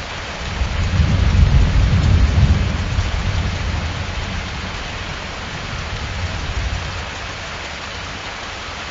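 AI-generated rain and thunder from the AudioLDM2 text-to-audio model, made from a prompt of rain, thunder and wind: a steady hiss of rain with a low rumble of thunder that swells about a second in and slowly fades.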